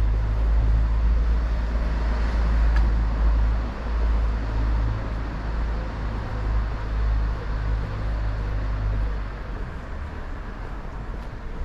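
City street traffic noise, with the heavy low rumble of a nearby motor vehicle that drops away about nine seconds in.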